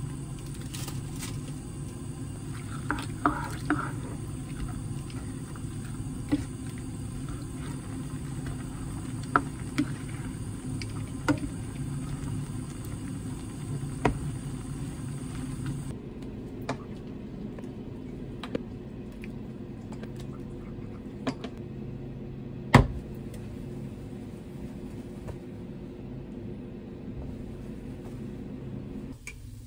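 A ladle knocking and scraping against a large pot of simmering tteokbokki, sharp clinks every two to three seconds with the loudest a little after halfway, over a steady low rumble.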